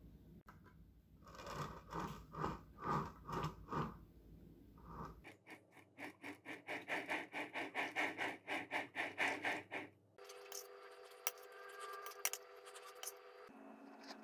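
Metal icing spatula spreading and scraping soft icing over a cake on a plastic turntable, in rhythmic strokes that turn into a quicker run of strokes midway. A few steady tones sound in the last few seconds.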